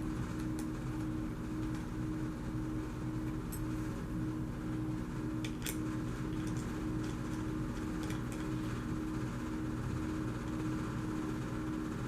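Steady mechanical hum, with a few light clicks and taps from small plastic parts and screws being handled.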